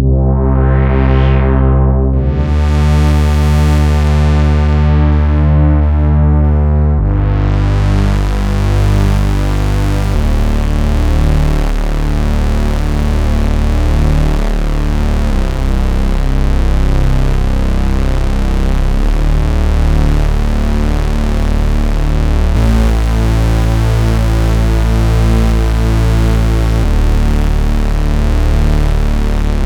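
Sequential Circuits Pro-One monophonic analog synthesizer playing long held bass notes that change every few seconds. In the first seconds the filter sweeps the tone brighter and back darker, and from about seven seconds in the sound turns bright and buzzy.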